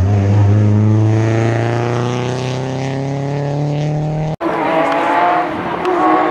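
A rally car's engine under full throttle accelerating out of a hairpin, its note climbing slowly. About four seconds in the sound cuts off abruptly and a Porsche 911 rally car's flat-six takes over, revving up, dropping back at a gear change and climbing again.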